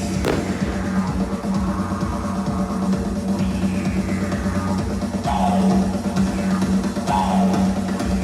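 Loud rock music with a pounding drum kit and guitar, played as the soundtrack to a fireworks display. A sharp bang comes just after the start.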